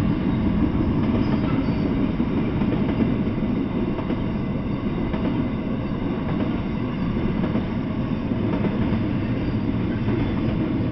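Intermodal freight train rolling past, its double-stack container cars and trailer-carrying flatcars making a steady, loud rumble of steel wheels on the rails.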